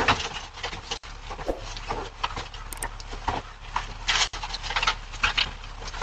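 Packages being handled and loaded into an SUV's open rear cargo area: scattered, irregular knocks and rustles, with a louder rustling burst a little after four seconds. A steady low hum runs underneath.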